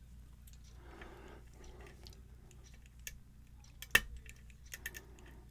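Lock pick working inside a Yale-style pin-tumbler lock: faint scraping and small metallic clicks, with one sharp click about four seconds in and a few lighter clicks just after.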